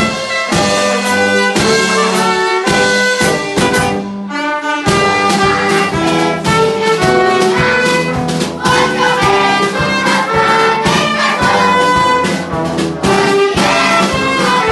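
A small brass band with a drum kit playing an upbeat piece: trumpet, trombone, saxophones and euphonium over a steady drum beat, with a short break in the bass and drums about four seconds in.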